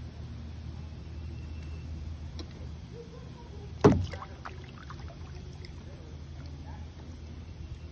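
Kayak paddling: a single sharp paddle stroke about four seconds in, the blade slapping into the water beside the plastic hull, followed by a few small splashes and drips, over a steady low rumble.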